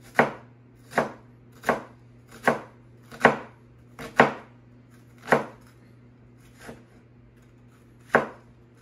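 Kitchen knife dicing a shallot on a cutting board: about eight sharp strikes a little under a second apart, with a short pause shortly before the end.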